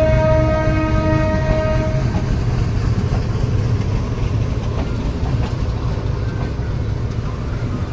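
Train horn sounding one steady note that stops about two seconds in, over the continuous low rumble of the running train.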